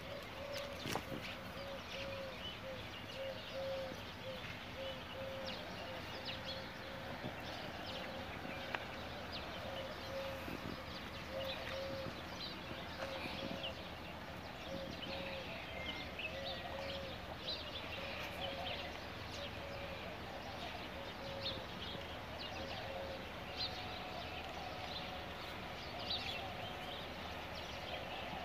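Small birds chirping and twittering, with a short low note repeated over and over.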